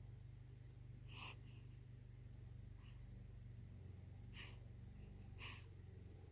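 Near silence with a low steady hum, broken by four faint, short breathy noises from someone eating.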